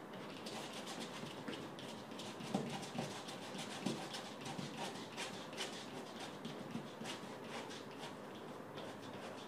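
Faint brushing of a paintbrush on canvas: quick repeated strokes, each a short swish, with a few soft bumps a few seconds in.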